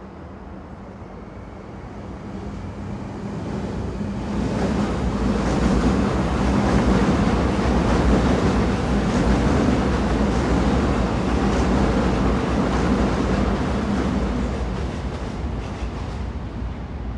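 Train running with a continuous rumble and rushing noise that swells over a few seconds, stays loud for about ten seconds, then eases off near the end.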